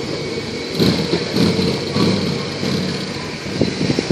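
2005 Harley-Davidson FLHT's Twin Cam 88 V-twin running under way as the bike rides off, the engine sound slowly fading with distance.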